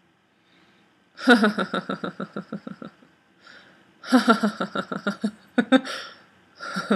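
A woman laughing on purpose as a laughter-yoga exercise, in rhythmic "ha-ha-ha" pulses. Two long runs of laughter start about a second in and about four seconds in, with a short burst at the end.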